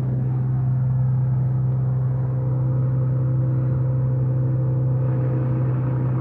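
Steady, unvarying motor drone from powered tree-cutting equipment working on branches, heard from inside a nearby flat.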